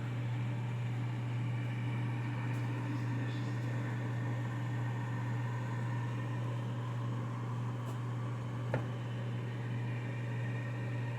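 Haier microwave oven running on its defrost cycle with the magnetron switched off, so only its cooling fan hums steadily. A single short click sounds near the end.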